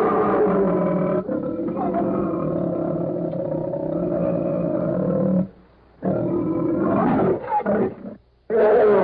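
Old sound-effect recording of a bear roaring: one long roar of about five seconds, a short pause, then a shorter roar that falls in pitch, and a third roar starting near the end.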